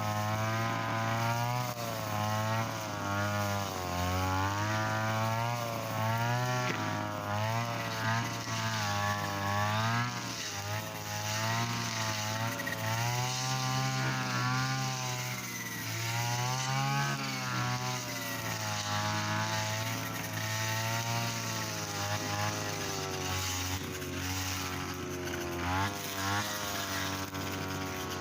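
Mitsuyama brush cutter engine running hard, its pitch rising and dipping again and again as the 2.4 mm trimmer line cuts through thick, stiff grass.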